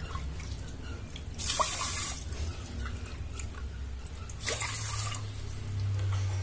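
Water being poured into a pot of washed rice to cook it, in two short splashing pours about three seconds apart, over a steady low hum.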